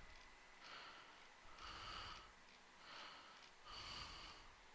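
Near silence with faint breathing close to the microphone: soft breaths about once a second.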